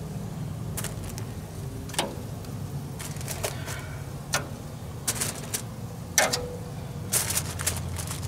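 Metal tongs clicking and clacking against the smoker's grate and the ribs as beef short ribs are lifted off and laid on aluminium foil: a string of short sharp clicks, a few in quick runs in the second half, over a steady low hum.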